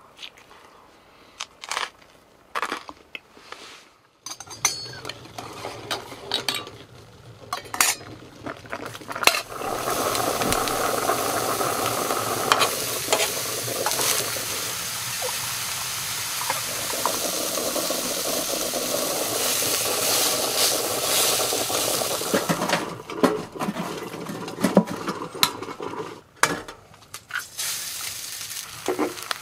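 Raw ground-beef patties frying in a stainless steel pan, a steady sizzle that sets in about nine seconds in after a stretch of faint clicks and taps. In the last few seconds the sizzle drops back under a run of sharp clinks and taps of utensils against the pan.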